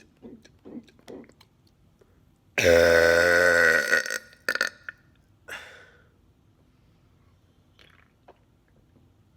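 A man burps once, long and loud, for about a second and a half, the gas brought up by drinking carbonated soda. Shortly before it come a few quick, evenly spaced gulps.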